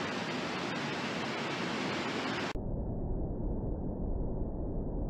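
Steady background hiss with no distinct events; about halfway through it turns duller as the high end drops out.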